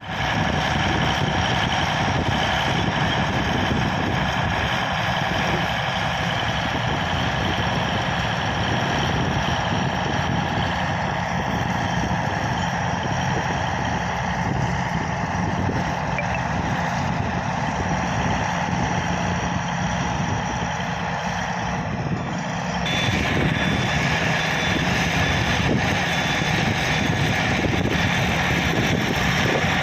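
Bulldozer's diesel engine running steadily, its sound shifting about 23 seconds in to a brighter, harsher tone with a faint high whine.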